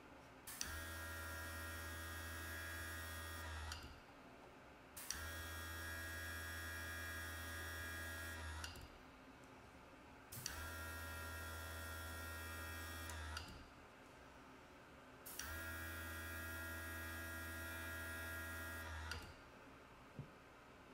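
Small airbrush compressor running in four spurts of about three to four seconds each with short pauses between, each starting with a click: spraying light coats of touch-up paint. It gives a steady electric hum with a higher whine over it.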